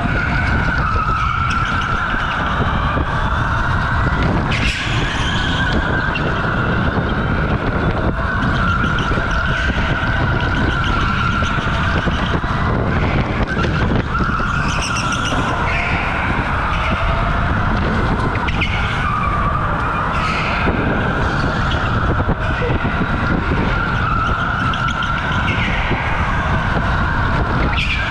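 OTL Storm electric go-kart lapping an indoor concrete track, heard from the driver's seat: the electric motor's whine rises and falls with speed through the corners over a steady rumble. Short tyre squeals come as it slides, about 5, 15 and 20 seconds in.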